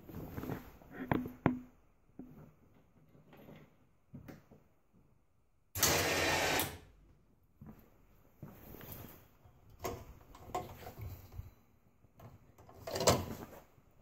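Polaris Ranger's electric winch motor running for about a second as the newly fitted rocker switch is tested, with a second shorter burst near the end, among footsteps and handling clicks. The test shows the switch wired backwards: winch in and winch out are reversed.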